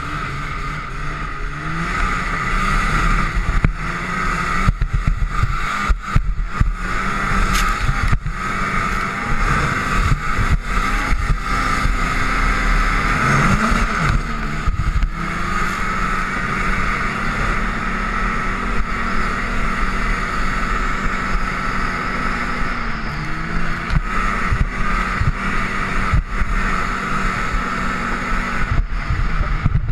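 Snowmobile engine running at speed, with a steady rushing noise from the track and snow; the engine pitch dips and climbs a few times as the throttle changes.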